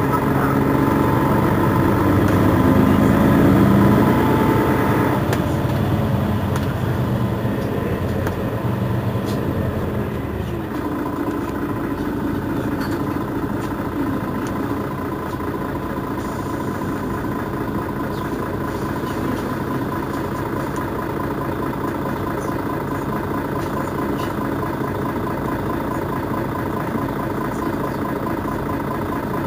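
Mercedes-Benz Citaro city bus engine idling at a stop. It is louder for the first few seconds, then settles to a steady idle hum for the rest.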